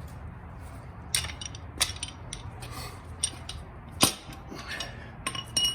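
A few sharp metal clinks and knocks, the loudest about four seconds in and a quick cluster near the end, as a bushing press tool and aluminum control arm are handled, over a steady low hum.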